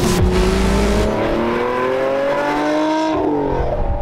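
A car engine accelerating: a low rumble, then its pitch rising steadily for about two seconds before stepping down about three seconds in and holding steady near the end.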